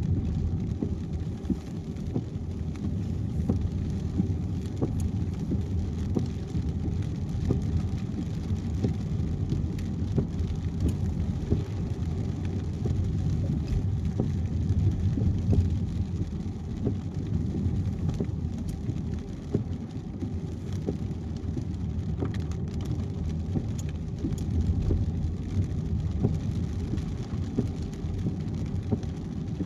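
Car driving at highway speed in rain. A steady, low rumble of road and tyre noise runs throughout, with scattered faint ticks of raindrops.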